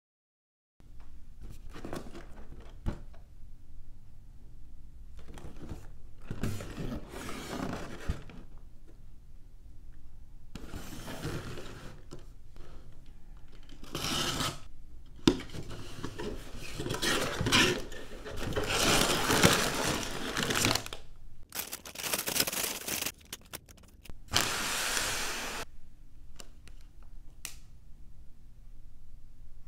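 Unboxing a LEGO set: the cardboard box is cut open with a small cutter and handled, then the plastic parts bags, paper instruction booklet and sticker sheet are taken out. The result is a series of scrapes, rustles and crinkles, loudest about two-thirds of the way through.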